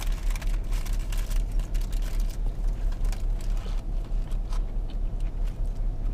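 Low, steady rumble of a car idling, heard from inside the cabin, with small clicks and rustles of chewing and handling a burger during the first couple of seconds.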